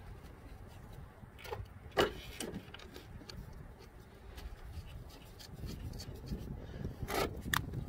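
A few light clicks and taps of the front strut's top-mount bolts being threaded in by hand, the sharpest about two seconds in and two more close together near the end, over a faint low rumble.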